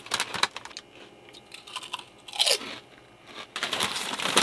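Crisps crunched and chewed in short bursts, with the crisp packet crinkling near the end.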